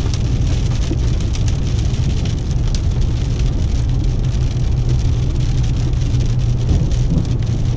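Steady engine and road rumble inside a moving car's cabin, with many small taps of heavy rain striking the car's glass and body.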